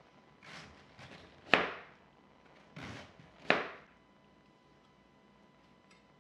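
Kitchen knife slicing a red cabbage quarter into shreds by hand on a cutting board: four cuts, the second and fourth loudest, stopping about four seconds in.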